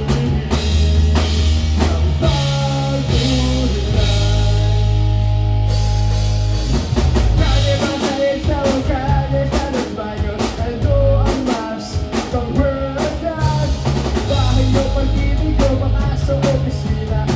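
Live rock band playing: drum kit, a steady bass line and guitar, with a melodic lead line coming in about halfway through.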